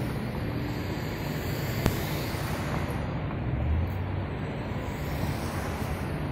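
Street traffic noise as cars drive slowly past close by: a steady low rumble of engines and tyres. There is a single sharp click about two seconds in.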